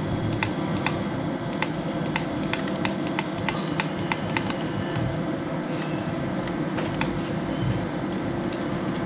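Computer mouse clicking in quick, uneven succession, several clicks a second, as points of a selection polygon are set, then one more click about seven seconds in, over a steady low hum.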